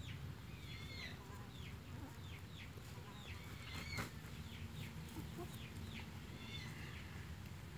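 Chicks peeping over and over in short, high, falling cheeps, several a second. There is a single sharp click about four seconds in.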